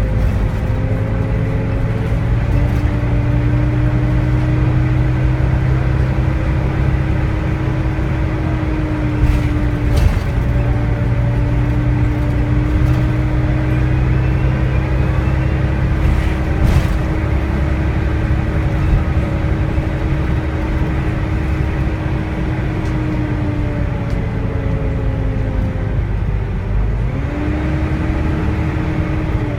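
Volvo D9A diesel engine of a Volvo B9TL double-decker bus pulling under load with its characteristic 'hoovering' whine, the pitch stepping up a few seconds in, dipping around ten seconds, falling later on and rising sharply again near the end as the revs change. A few brief clicks or rattles sound over the steady engine noise.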